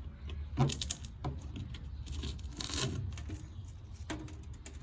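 Scattered light rustling, scraping and a few small knocks from debris being handled in the rotted floor of an old go-kart car body, over a steady low rumble.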